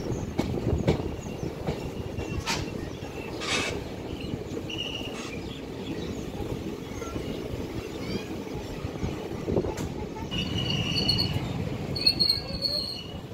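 Passenger train running at speed: a steady rumble of wheels on rail with a few sharp clacks, and a high wheel squeal coming in from about ten seconds in.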